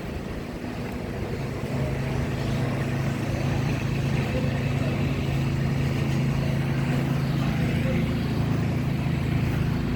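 A motor vehicle's engine running steadily, with a low hum that grows a little louder about two seconds in.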